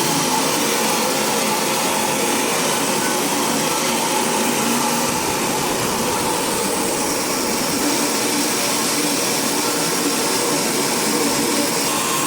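Sawmill saw running with a loud, steady, even noise.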